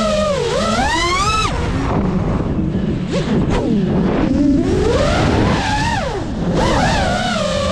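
GEPRC Mark5 5-inch FPV quadcopter's brushless motors whining, the pitch rising and falling with the throttle. About 1.5 s in the whine climbs sharply and cuts off into a rush of air, then surges again through several swoops.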